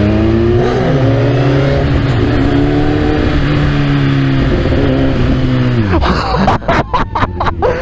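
Sport motorcycle engine accelerating hard: its pitch climbs, drops at a gearshift about a second in, then holds high revs. About six seconds in the revs fall off, followed by a run of short sharp cracks.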